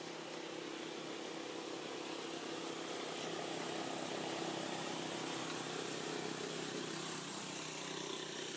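An engine running steadily, a low even hum under outdoor background noise, growing a little louder about halfway through.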